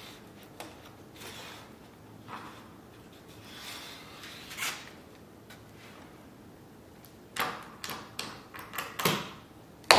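Wooden board sliding and rubbing on a plywood jig as it is nudged into place by hand, then a run of sharp clicks and knocks from about seven seconds in as a hold-down clamp on the jig's T-track is set, the loudest knock near the end.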